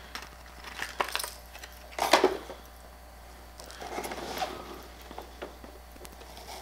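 Handling noise from a jointed plastic topwater lure, the Lunkerhunt Link, being taken out of its clear plastic package: scattered small clicks, clinks and rustles, the loudest about two seconds in.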